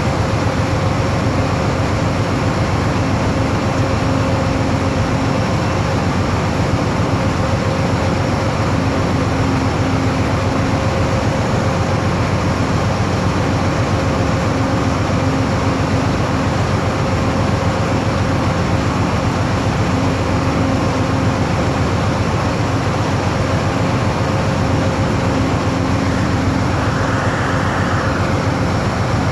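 Amtrak passenger train standing at the platform, running with a steady mechanical hum and a held low tone.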